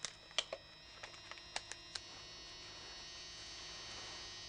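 A steady electrical hum with a high, many-toned whine that slowly grows louder. It follows a few sharp clicks in the first two seconds.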